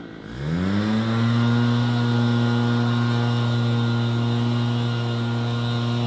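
A small engine running at steady high revs: it is eased off just before, revs back up in a smooth rising whine over the first second, then holds one even pitch.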